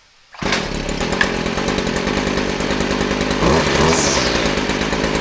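Stihl FS 50 C two-stroke string trimmer engine catching about half a second in and running steadily, with a brief rev around the middle. The trimmer has been rebuilt with a new carburetor and filters and is now starting and running.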